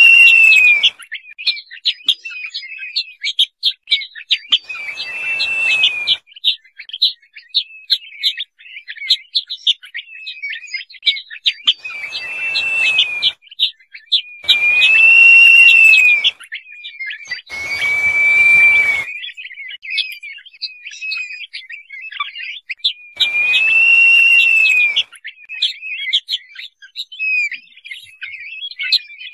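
Crested partridge (roul-roul) calling: six loud, drawn-out whistles spread over the stretch, each rising and then falling in pitch. Between the calls runs a steady patter of short, high chirps.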